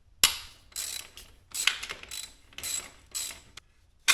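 Socket ratchet clicking in repeated back-and-forth strokes, about two a second, loosening the exhaust hanger bolt on a motorcycle.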